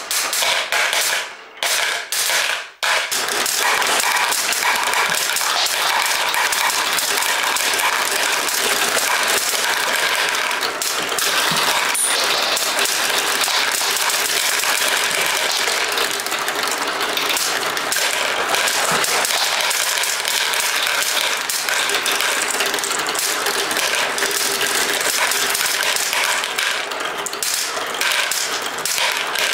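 Many marbles rolling and clicking down a plastic Duplo-block marble run: a dense, continuous clatter after two brief pauses in the first three seconds.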